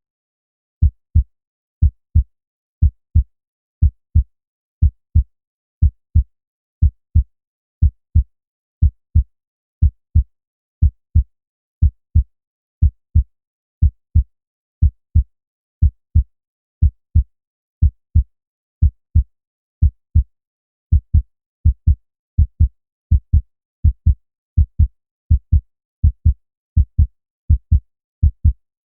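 Heartbeat sound effect: steady lub-dub double thumps, about one beat a second, low in pitch, with silence between beats. The beats start about a second in.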